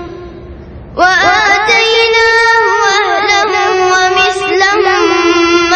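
A boy reciting the Quran in a melodic, drawn-out chant, his voice resuming about a second in after a breath, with long held notes that waver and bend ornamentally.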